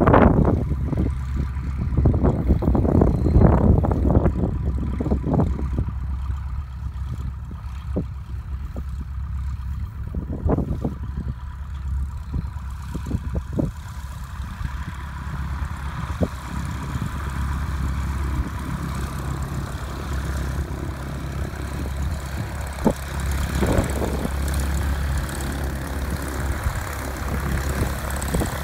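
Continental O-200 four-cylinder engine and propeller of a 1963 Cessna 150 running at low taxi power, a steady low drone. Wind gusts buffet the microphone in the first few seconds.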